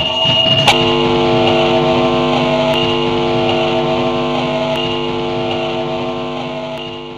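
Electronic sound generators holding a sustained drone of several steady tones, which starts after a sharp click about a second in and slowly fades out.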